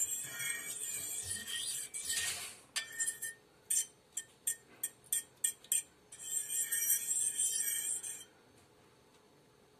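Metal fork beating egg in a ceramic bowl: quick scraping and clinking against the bowl, breaking into separate taps for a few seconds in the middle, then stopping about eight seconds in.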